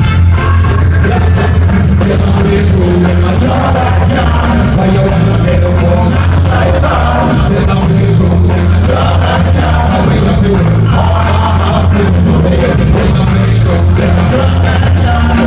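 Loud live band music with a heavy, steady bassline, dense drums and a singing voice over it, playing without a break.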